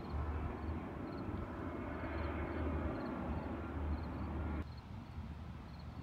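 Outdoor background rumble that swells a little midway and cuts off abruptly about four and a half seconds in, with faint high chirps repeating about twice a second.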